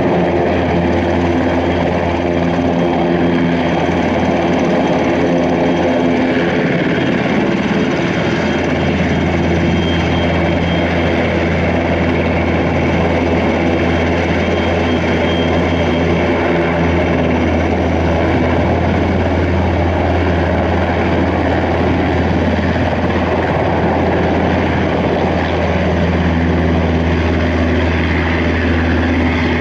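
NHIndustries NH90 helicopter's twin turboshaft engines and main rotor running at full power as it lifts off and departs: a loud, steady rotor drone with engine whine, the low rotor sound growing stronger past the middle.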